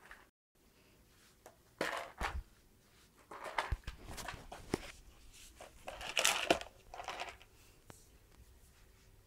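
Irregular rustling and crinkling in bursts, with a few sharp clicks, as a pet rabbit moves about and pushes things around; the loudest burst comes about six seconds in.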